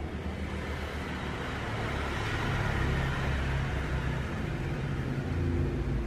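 Steady low rumble with an even hiss that grows a little louder about two seconds in, with no bird calls heard.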